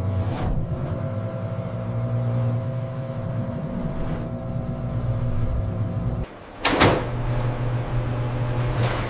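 Steady hum of running factory machinery, which cuts out for a moment about six seconds in and is followed by a loud sharp clank, with a fainter one near the end.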